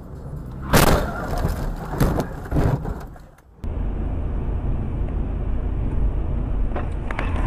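A car collision: a sudden loud bang a little under a second in, followed by a few more knocks and clatter that die away. After a cut, a steady low rumble of road and engine noise heard from inside a moving car.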